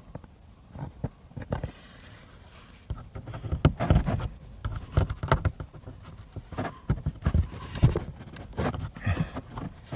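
Hand fumbling with plastic under-dash trim and a footwell light pod: irregular clicks, taps and rustling, quiet at first and busiest from about three seconds in.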